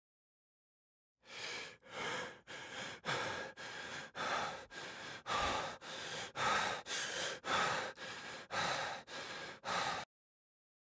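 A person breathing hard and fast, quick alternating in- and out-breaths about two a second. The breathing starts suddenly just after a second in and cuts off abruptly near the end.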